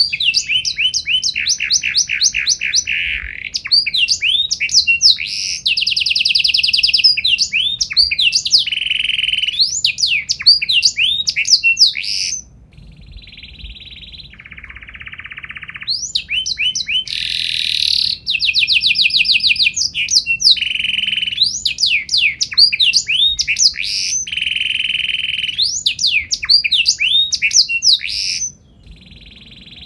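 Domestic canary singing a long, loud song of rapid trills and sweeping whistled notes. About twelve seconds in it breaks off to a quieter, lower phrase, then resumes about four seconds later and stops near the end.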